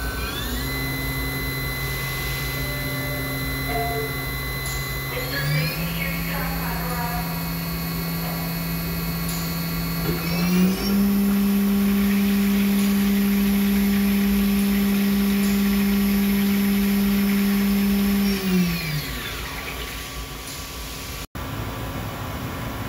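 Matsuura H-Plus horizontal machining center spindle running with a tool loaded: a steady whine that steps up in pitch twice, about five and ten seconds in, getting louder at the second step. Near the end it winds down and stops.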